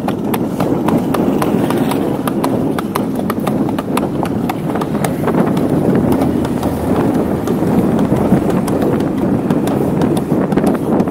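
A carriage horse's hooves clip-clopping on an asphalt road in a quick, regular rhythm, over a steady rumbling noise.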